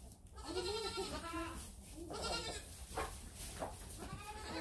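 Goats bleating: two drawn-out bleats in the first half, a couple of knocks about three seconds in, and another bleat starting near the end.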